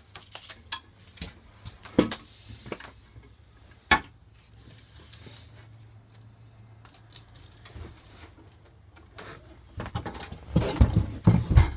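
A free-floating table with black tubular metal legs being handled and stowed, clanking and knocking: two sharp knocks about two and four seconds in, then a run of bumping and scraping near the end as it is slid into place behind the couch.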